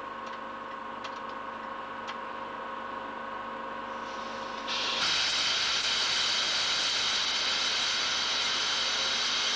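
Steady hum from a standing passenger train, then about halfway through a loud, steady hiss of air venting from the train's air brakes sets in suddenly.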